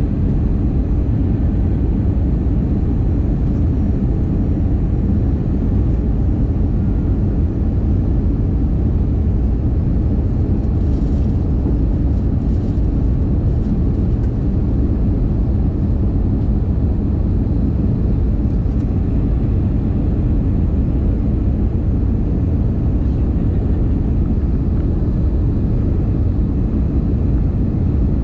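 Steady, low rumble of jet engines and rushing air heard inside the cabin of an Airbus A320-family airliner during its descent.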